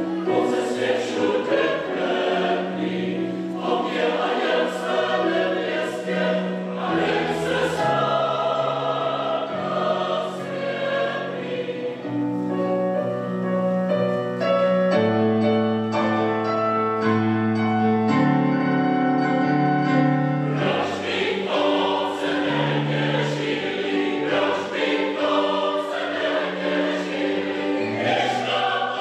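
Mixed choir of men's and women's voices singing in parts. Around the middle the voices hold a run of long sustained chords, then move on again.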